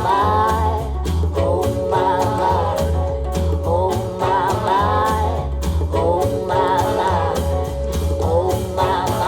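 A 50-year-old Luxman & Group S-25 loudspeaker playing back a country-style song, with a steady bass beat and a wavering lead melody.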